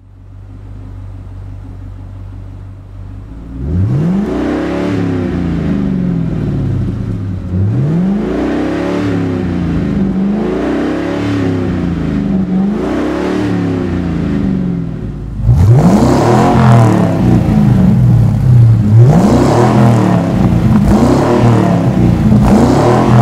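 A 1999-2004 Ford Mustang GT's 4.6L V8 idling through its exhaust, then blipped in a series of revs that rise and fall back to idle. About fifteen seconds in, the sound cuts to a louder recording of the same revving, the comparison between the stock exhaust and an SLP Power-Flo cat-back with straight-through mufflers.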